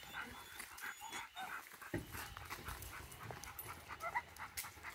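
Dogs panting quickly, with a couple of short whines in the second half.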